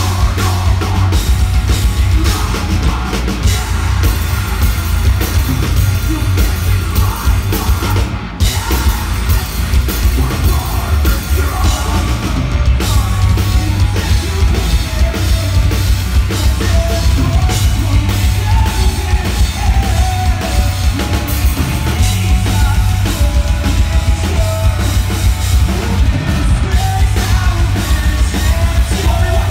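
A live metalcore band playing loud through a venue PA, recorded on a phone: pounding drums, bass and distorted guitars, with a momentary stop about eight seconds in.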